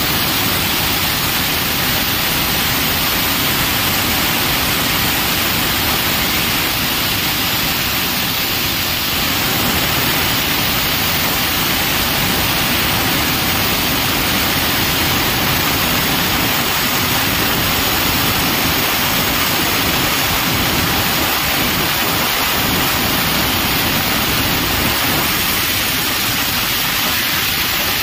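Plasma cutter cutting stainless steel sheet: a steady, loud hiss of the arc and its air jet.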